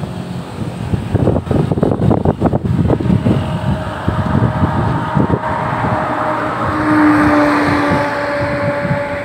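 A motor vehicle passing by: its engine noise swells to a peak a couple of seconds before the end, then eases off. Irregular low rumbling comes between about one and three seconds in.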